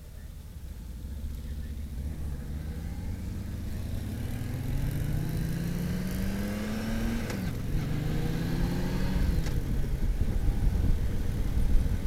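Touring motorcycle engine accelerating through the gears. Its pitch climbs, drops at a gear change about seven seconds in, climbs again and drops at another change about nine and a half seconds in. Wind rush builds as the speed rises.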